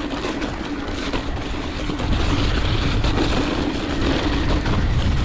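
Strong wind buffeting the microphone over the rolling noise of a mountain bike on a rough trail, with a steady hum and scattered small clicks and rattles. It gets a little louder about two seconds in.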